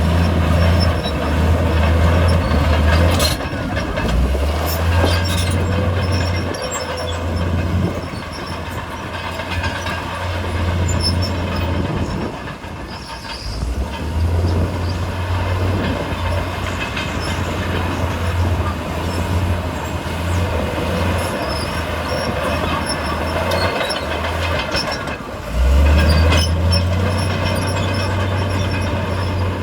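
Komatsu D68E crawler bulldozer working with its diesel engine running under load in a low drone that eases off briefly several times, over a noisy clatter of tracks and rock with a few sharp metallic knocks.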